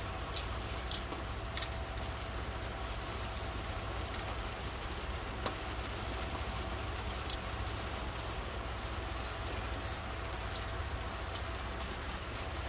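Steady rain falling, an even hiss with scattered sharp drop hits.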